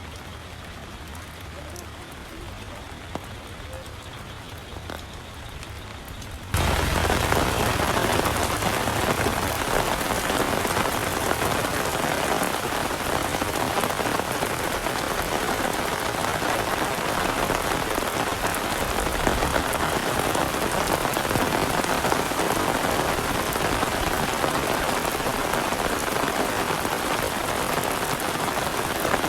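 Heavy rain falling steadily in a dense, even hiss. About six seconds in it jumps suddenly much louder, from a quieter patter to a downpour.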